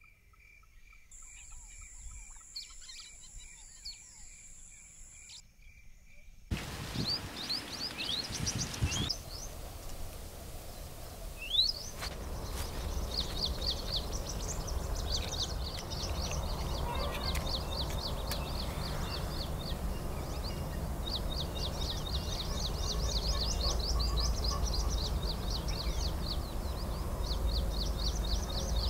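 Outdoor field ambience: small birds chirping in quick repeated trills over a steady low rumble. It starts faint, and the birdsong and background noise come in about six seconds in.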